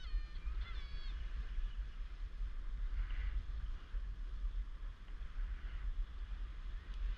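A few short honking bird calls in the first second, then a steady low rumble of wind on the microphone with soft noise from the water.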